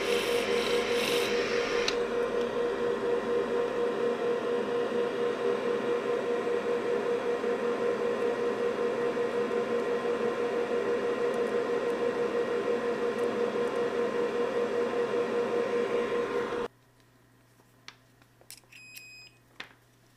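Hot-air rework station blowing steadily with a hum and a fast pulsing flutter while a small capacitor is desoldered, cutting off abruptly about 17 seconds in. Near the end a few short electronic beeps sound, like a multimeter's continuity check.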